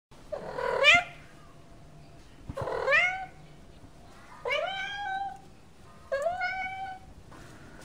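A cat meowing four times, about two seconds apart, each call rising in pitch.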